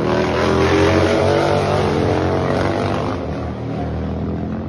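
Racing motorcycles' engines running hard as the bikes pass on the track. The sound is loudest about a second in and fades somewhat after about three seconds.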